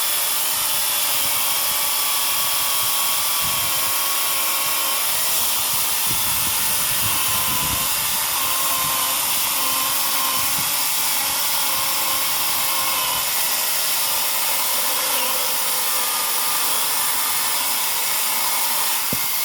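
Foxter GY229410 40-volt brushless cordless chainsaw running, its electric motor and chain giving a steady high whine whose pitch wavers slightly.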